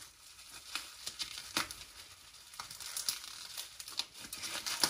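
Packaging crinkling and rustling as an item is handled and unwrapped, in irregular short crackles.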